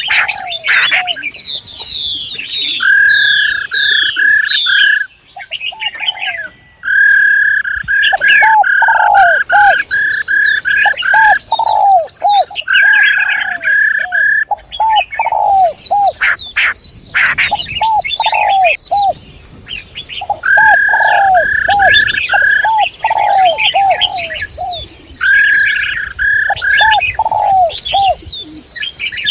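Several female songbirds calling together: fast, high chirps over runs of repeated whistled notes, with lower cooing notes like a dove's mixed in, briefly dropping away twice.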